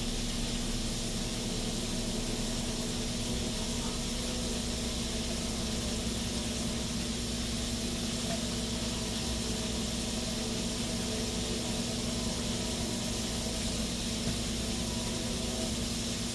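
Steady sizzling hiss of pork chops frying in a pan, with a low steady hum underneath.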